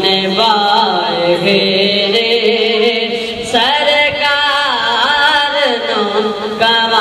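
A boy naat reciter singing an Urdu devotional hymn into a microphone, his voice sliding through long ornamented notes with a brief breath about three and a half seconds in.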